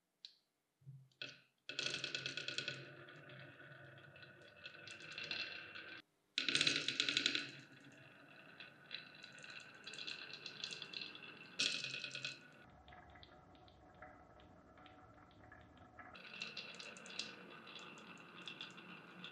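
Small balls rolling and clattering down a wooden marble-run track with a wavy carved groove, a rapid run of clicks as they knock against the wood and each other. The clicking comes in several bursts about a second long, the loudest a few seconds in and near the middle, with quieter rattling between.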